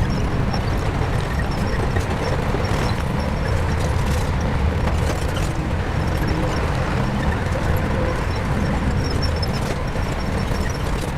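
Shantui crawler bulldozer's diesel engine running steadily, with a few faint knocks.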